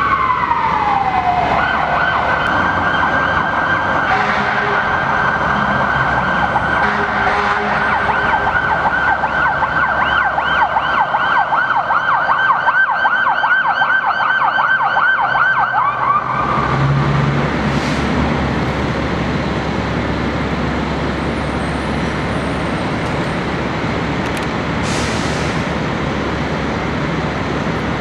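Fire engine's electronic siren winding down, then switching to a rapid warbling yelp for about fifteen seconds before cutting off abruptly. After that comes a steady low rumble of idling engines and traffic.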